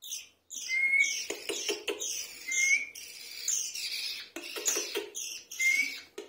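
Baby birds cheeping for food: high, repeated cheeps that slide downward, about two a second, with a few short rising whistles and light clicks mixed in.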